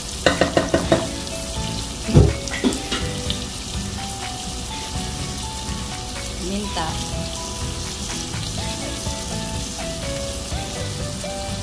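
Chicken hearts sizzling as they sauté in oil in a pot, a steady frying hiss. In the first second there is a quick run of knocks, and about two seconds in a single louder thump. Faint background music plays in the second half.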